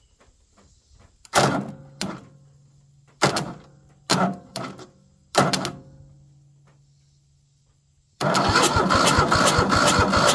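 Jumper-cable clamp touched to a riding mower's starter terminal three times, with sharp cracks and a short hum after each. About eight seconds in, the electric starter cranks the engine over with a rapid, steady chugging: the starter is okay.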